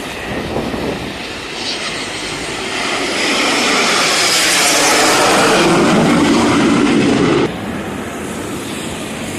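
Red Arrows BAE Hawk jets flying past at an airshow, their jet noise building to a loud peak. Near the end it cuts off suddenly, leaving a quieter rumble.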